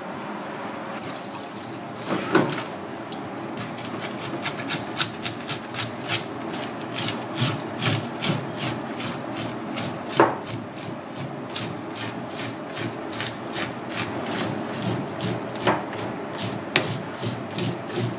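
Scales being scraped off a razorfish (a wrasse) with a scaling tool, in quick repeated strokes of about two to three a second, with a few louder knocks in between.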